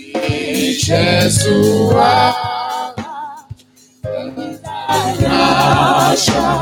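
Gospel choir singing, the voices wavering on held notes, over a steady low keyboard accompaniment. The singing breaks off briefly about three seconds in, then comes back in full.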